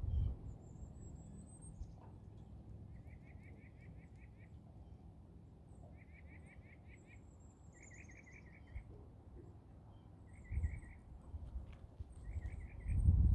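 Wind buffeting the microphone with a low rumble, gusting up about two-thirds of the way through and again near the end. Over it, songbirds call: a short rapid trill repeated about six times, and thin very high-pitched calls.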